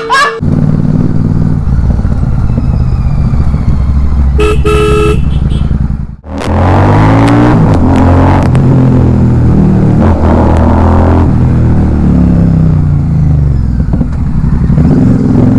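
Royal Enfield Super Meteor 650's parallel-twin engine with an aftermarket silencer, running loud under way. It drops off briefly about six seconds in, then pulls again with its pitch rising and falling. A vehicle horn honks for about a second, roughly four and a half seconds in.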